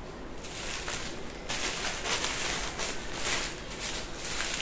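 Saree cloth rustling as it is handled and smoothed out by hand, in uneven swishes that grow stronger about a second and a half in.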